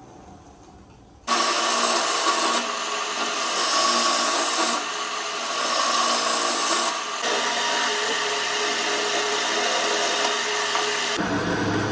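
Wood lathe spinning a segmented vase while a hand-held gouge cuts into its rosewood rim, a steady rasping, hissing cut over the lathe's hum. It starts abruptly about a second in and changes abruptly near the end to a lower, rumbling noise.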